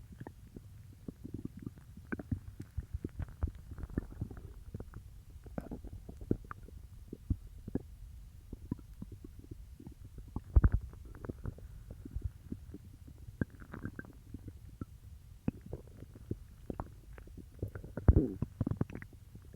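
Human stomach growling and gurgling as it digests peanut butter: a low murmur broken by many irregular squelches and pops, loudest about halfway through and again near the end.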